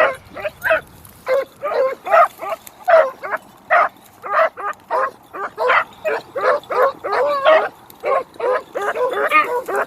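Beagles barking in a steady run of short, pitched barks, about two a second and sometimes overlapping, as hounds giving voice on a rabbit's trail.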